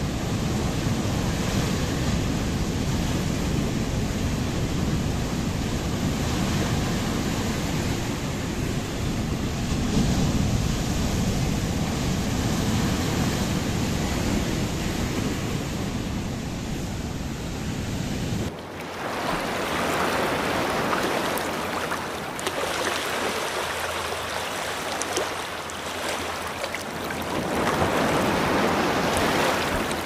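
Heavy surf breaking and washing over a rocky shore, a continuous rush of foaming water. A deep rumble underneath drops away suddenly about two-thirds through, after which the wash rises and falls in surges.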